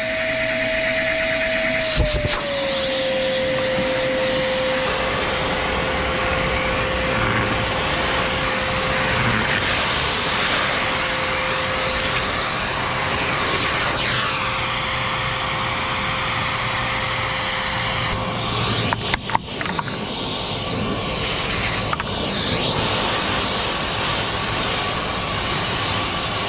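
Bauer 14-gallon 6 hp wet/dry shop vacuum running with a steady high whine that drops slightly in pitch about two seconds in. Later the whine fades out, a few knocks and rattles come through, and the motor noise carries on.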